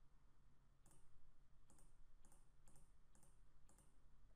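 Faint computer mouse-button clicks, about six of them, spread unevenly over a few seconds as drop-down menu entries are picked, over a faint low hum.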